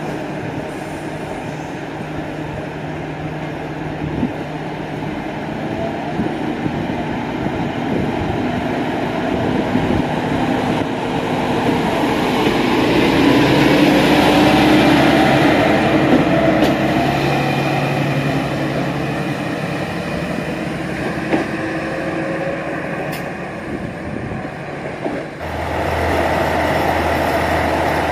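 Kyoto Tango Railway KTR 700 series diesel railcar (the Aomatsu) with its engine running at the platform, then accelerating as it pulls out and passes close by, loudest when alongside and fading as it goes. Near the end the sound changes abruptly to another diesel train standing with a steady low engine hum.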